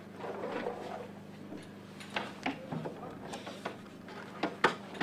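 Scuffs, rustling and a string of sharp knocks and taps as a person crawls into a fighter jet's air intake, the loudest knock near the end, over a steady low hum.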